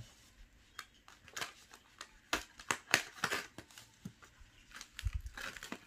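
White foam and plastic packaging wrap rustling and crinkling as it is handled and pulled open, in short irregular scrapes and crackles. A couple of low thuds come about five seconds in.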